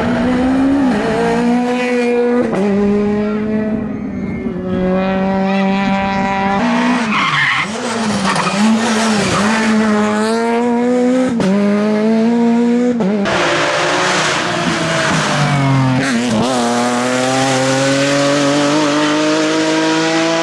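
Rally car engines revving hard on a stage, pitch climbing under acceleration and dropping at each gear change, with tyre noise; a noisier stretch of tyre and road noise comes about two-thirds of the way through.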